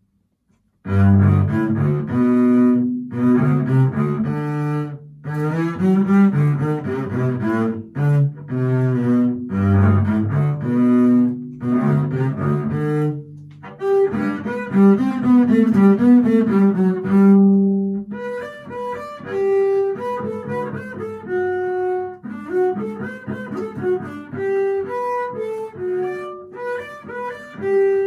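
Solo double bass played with the bow: a gavotte in short bowed phrases with brief pauses between them, starting about a second in. About two-thirds of the way through, the line moves up to higher notes.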